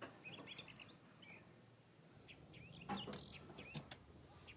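Small birds chirping in short, repeated rising-and-falling notes, faint over a low steady hum, with a brief louder clatter about three seconds in.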